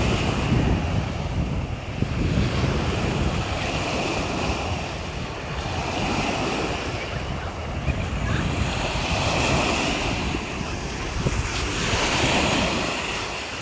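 Small Adriatic Sea waves breaking and washing up a sandy shore, the surf swelling and easing every few seconds, with wind buffeting the microphone.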